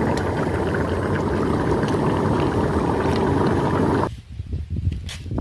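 Gas burner under a large pot of fish curry running with a steady noise, which cuts off abruptly about four seconds in; a few low thumps follow.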